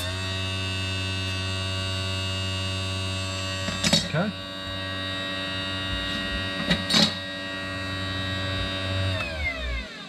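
RC tire truing machine's electric motor spinning a foam tire at steady speed, a humming whine with two short knocks partway through. Near the end the motor is switched off and its pitch falls as it winds down.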